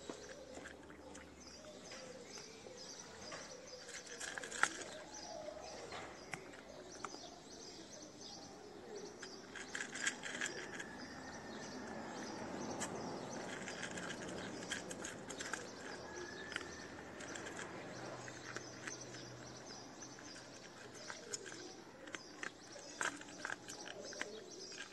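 Small birds chirping over and over against a steady background hiss, with scattered sharp clicks.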